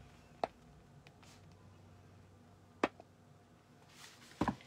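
Glossy paper catalogue pages being handled and turned: a few short, sharp snaps, then a page flip with a louder cluster of snaps near the end.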